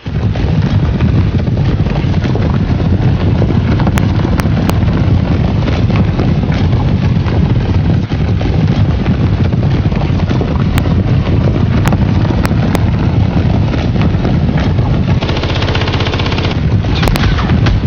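Battle sound effects: a dense, steady low rumble of many galloping horses, joined about fifteen seconds in by a harsher, brighter crackle of rapid gunfire.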